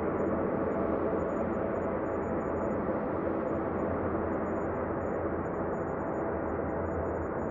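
Ambient space drone: a steady, low, rumbling wash of sound with faint sustained tones and a low hum, no beat or melody.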